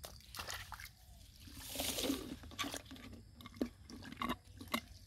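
Muddy water splashing as it is bailed out of a shallow ditch with a plastic basin, the loudest splash about two seconds in. A few short wet slaps and knocks follow as hands work in the mud.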